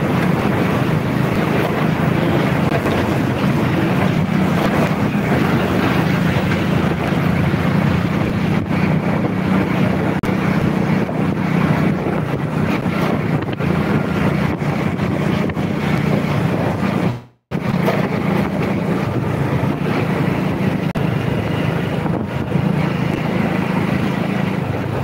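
Motorcycle riding along, its engine running steadily under heavy wind noise on the microphone. The sound cuts out for an instant about two-thirds of the way through.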